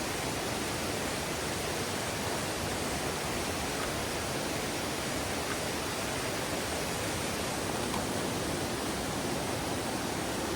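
Mountain valley stream rushing steadily, a continuous even water noise.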